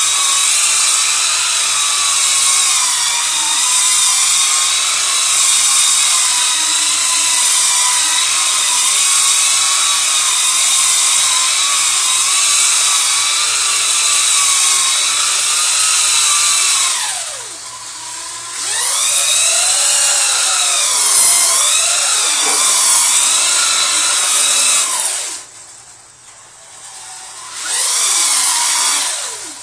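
Electric Duratrax Evader RC truck doing donuts on wet concrete: a high motor-and-gear whine whose pitch wavers as it circles. It eases off briefly about two-thirds of the way through, drops nearly away near the end, then spins back up.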